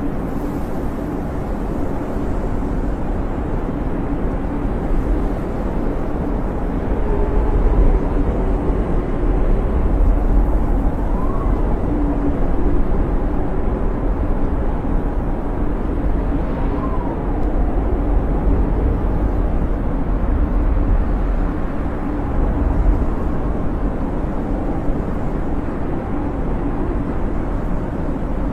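Snowstorm wind blowing steadily with a deep rumble. A faint whistling howl rises and falls above it a couple of times.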